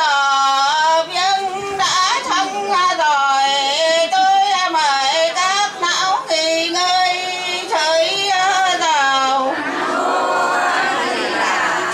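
A woman's voice singing a slow funeral lament into a microphone, with long drawn-out notes whose pitch wavers and bends, and a rougher, breathier stretch about ten seconds in.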